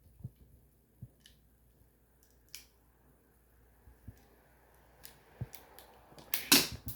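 Scattered light plastic clicks from a toy revolver being handled and aimed, then one loud sharp snap near the end as the toy revolver fires.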